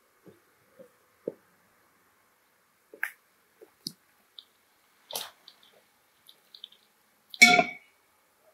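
Scattered footsteps and small handling knocks, then a metal cooking pot set down on a metal stand with a clank and a brief ring about three-quarters of the way through.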